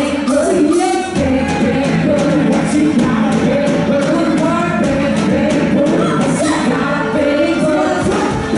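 Live pop band playing: women singing into microphones over keyboard, bass guitar, electric guitar and drums, with a steady drum beat.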